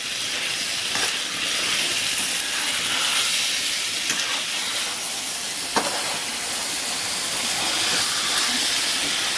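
Mutton liver masala with freshly added tomatoes sizzling in a pan as it fries, a steady hiss. A few sharp knocks sound about one, four and six seconds in.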